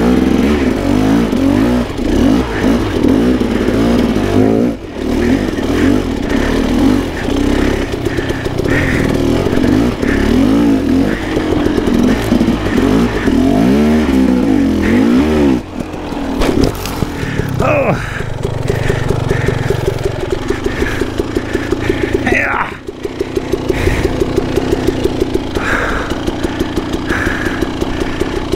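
2016 KTM 300 XC-W single-cylinder two-stroke dirt bike engine under riding load, revving up and down with the throttle, the revs dropping off briefly three times. Near the end it runs at low revs with an even pulse.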